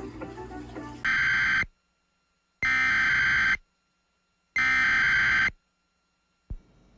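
Emergency Alert System SAME header: three loud bursts of digital data tones, each under a second long, with about a second of silence between them.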